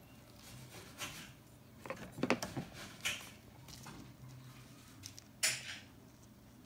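Several short scrapes and knocks of wooden feeding tongs against a plastic deli-cup enclosure and its substrate, the busiest about two seconds in, over a faint low hum.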